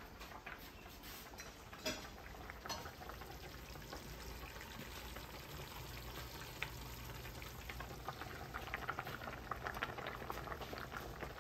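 Faint sizzling and bubbling of a curry cooking on the stovetop: green mango pieces frying in spiced curry paste and oil in a pan, beside a pot of rice at the boil. The crackle grows denser near the end.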